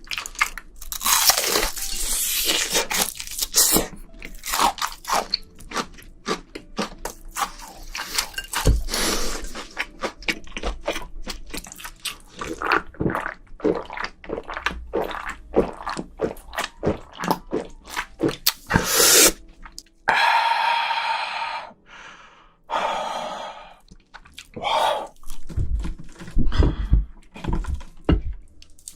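Close-miked crunching and chewing of battered fried shrimp, with dense, irregular crackles of the crisp coating. About two-thirds through, a steady hissing noise lasts a few seconds.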